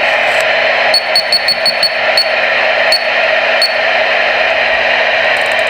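CB radio giving off steady, loud static hiss with the squelch open, while its channel is stepped down to channel 23. Each step gives a short high beep: a quick run of about six about a second in, then three more spaced out.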